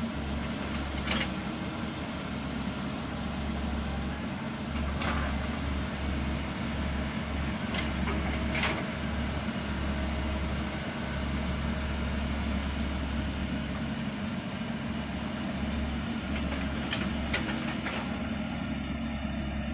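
Excavator's diesel engine running steadily, with a few brief knocks or clanks scattered through.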